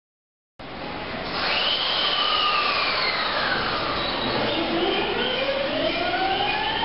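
JR East E217 series electric commuter train pulling away, its traction motors and inverter drive whining in gliding tones: a high tone falling, then tones rising steadily in pitch as it accelerates, over the rumble of the wheels. The sound cuts in abruptly about half a second in.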